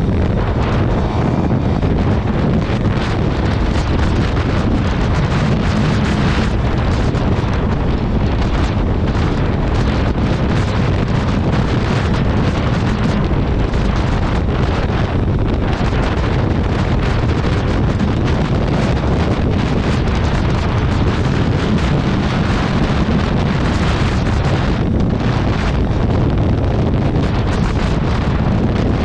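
Steady, loud wind rush buffeting the microphone of a motorcycle rider at speed, with the 2019 Suzuki GSX-R750's inline-four engine running underneath.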